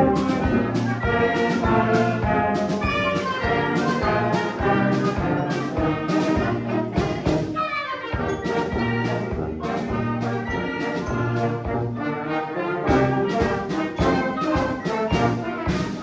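Wind band playing, with brass to the fore and a steady beat.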